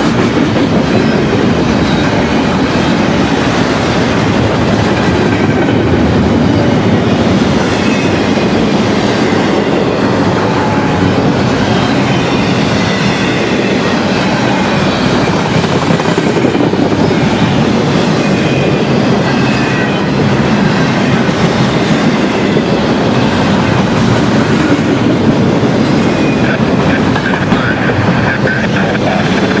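Double-stack container train's well cars rolling past: a loud, steady rumble and clatter of steel wheels on the rails, with faint high squeals coming and going.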